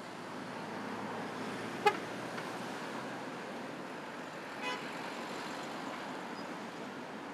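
Steady street traffic noise with an intercity coach driving through a junction. A vehicle horn gives one short, sharp toot about two seconds in, and a fainter short beep follows nearly three seconds later.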